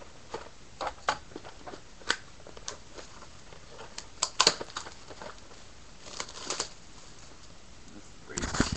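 Plastic shrink-wrap being torn and pulled off a sealed trading-card box: scattered crinkles and tearing crackles, sharpest about four and a half seconds in, with another cluster a little after six seconds.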